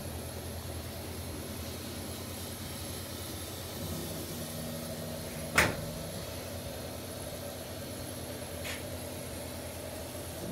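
Boss LS3655 laser cutter running a cut in wood with its air assist on: a steady machine hum whose motor tones drop out and come back as the head moves. A single sharp click a little past halfway is the loudest sound.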